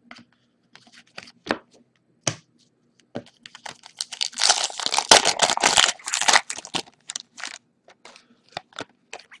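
A hockey card pack's wrapper torn open and crinkled in the hands: a few light clicks at first, then a dense crackling tear for a few seconds from about three and a half seconds in, then scattered clicks as the cards are handled.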